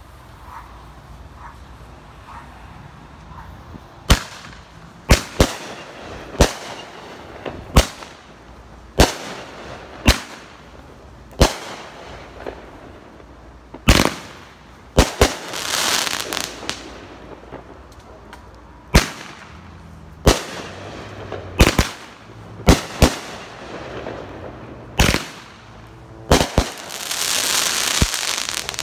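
A 500 gram consumer firework cake fires shot after shot, about twenty sharp launches and bursts that start a few seconds in, some coming in quick pairs. After some breaks there are stretches of dense crackling, the longest near the end.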